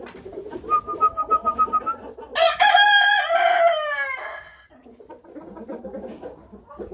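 Rooster crowing once, loud and about two seconds long, falling away at the end, over steady low clucking from hens. A thinner, held higher call comes a second before the crow.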